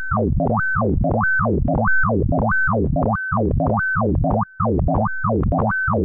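Synthesized sonification tones from a Pure Data patch turning the pixel colours of a photograph into sound: pitches glide up, hold briefly at the top and glide down, repeating about one and a half times a second over a low pulsing drone. There is a brief dropout about four and a half seconds in.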